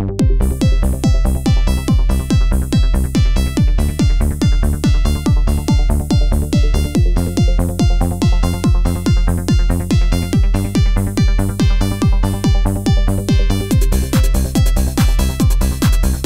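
Electronic dance music with a steady beat of about two beats a second; the higher parts fill out near the end.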